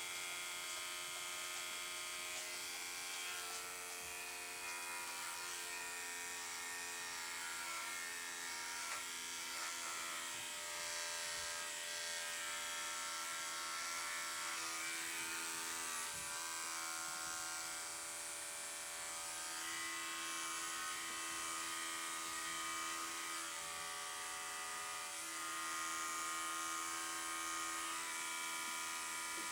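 Electric dog grooming clippers running with a steady buzz while trimming a poodle puppy's coat.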